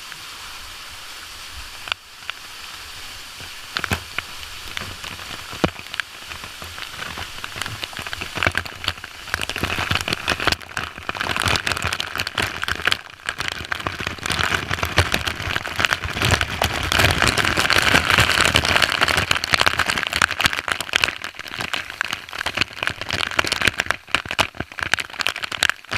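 Waterfall spray spattering and crackling on the microphone in a dense patter of tiny hits. It grows heavier from about ten seconds in and is heaviest a little past the middle.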